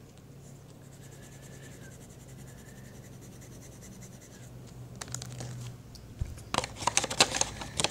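A faint steady low hum, then from about five seconds in, bursts of rustling and sharp clicking from handling close to the microphone, busiest near the end.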